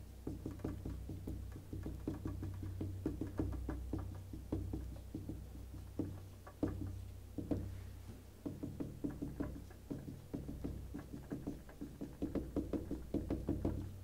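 Marker pen writing on a whiteboard: runs of quick taps and short strokes as characters are written, over a low steady room hum.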